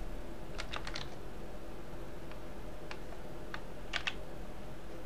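Computer keyboard keys being pressed: a quick run of about four key clicks half a second in, then single clicks spaced out and a close pair about four seconds in, over a steady low electrical hum.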